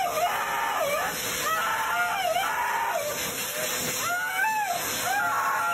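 Siberian husky howling in a string of wavering cries that swoop up and down in pitch, over the steady rushing hiss of a pet dryer blowing on it.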